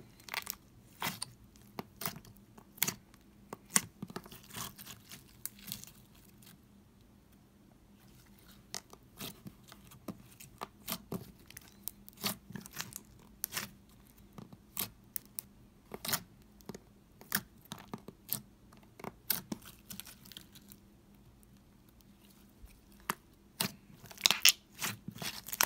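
Slime being kneaded and pressed by hand, giving irregular sharp sticky pops and crackles. There is a short lull about seven seconds in and a quick run of pops near the end.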